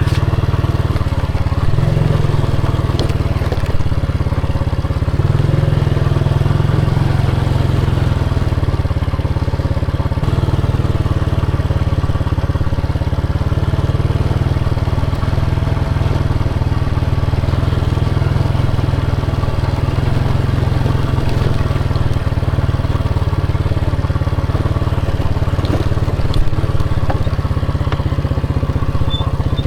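Motorcycle engine running steadily while riding, under a heavy, constant low rumble.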